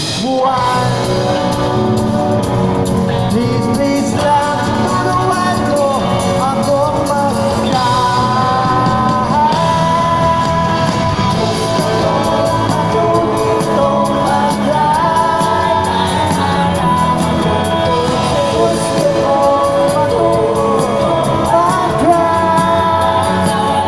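Live rock band playing loud through a concert sound system, with electric guitars and drums and a voice singing over them, heard from the audience.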